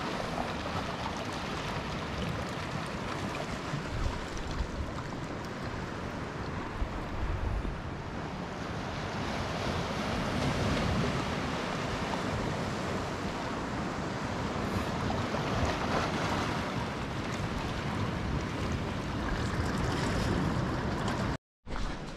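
Sea waves washing on the shore, with wind buffeting the microphone in low gusts; the sound swells in the middle and cuts out briefly near the end.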